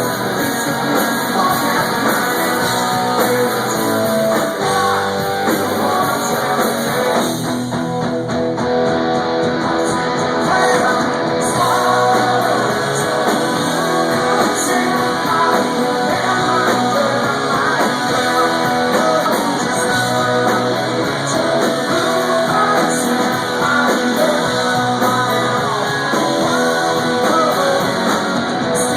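Live rock band playing loud, guitar-driven music, with singing.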